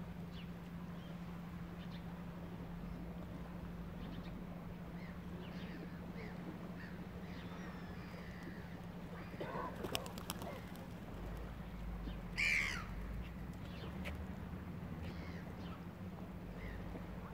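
Wild birds calling outdoors: scattered faint chirps throughout, a few sharp clicks about ten seconds in, and one louder harsh caw about twelve and a half seconds in, over a steady low hum.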